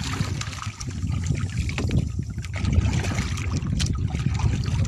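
Wooden paddle dipping and splashing in sea water alongside a small outrigger boat, over a steady low rumble.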